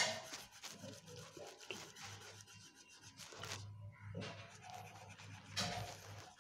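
Irregular scratchy rubbing strokes of colouring on paper, close to the microphone, over a faint low hum.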